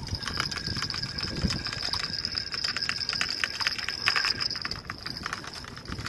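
Spinning fishing reel being cranked to wind in line: a fast, even ticking from the reel, over a steady high whine. The ticking stops near the end.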